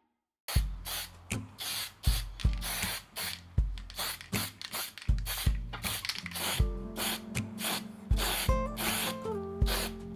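Background music with a steady beat, starting about half a second in.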